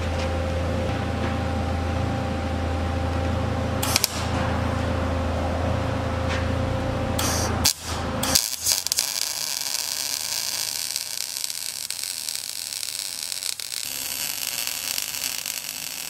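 A steady low hum with a few sharp clicks, then from about halfway a MIG welder's arc crackling and hissing as a sensor bung is welded onto the exhaust pipe.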